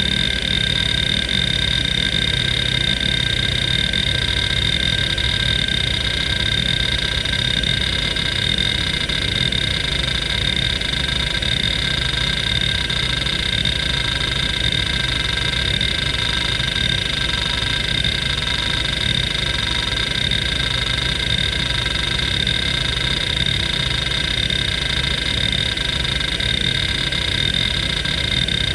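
Seagate ST3491A 427 MB IDE hard drive under a continuous seek test: its head actuator chatters in a rapid, unbroken stream of seeks sweeping back and forth across the platters, over a steady high whine from the spinning drive.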